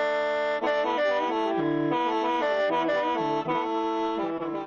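Instrumental background music: sustained reedy chords and a moving melody over a shifting bass line.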